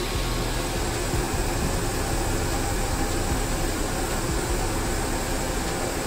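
Steady machinery noise of a steel rolling mill's roller table and stands as a red-hot beam passes through: a low hum under an even hiss.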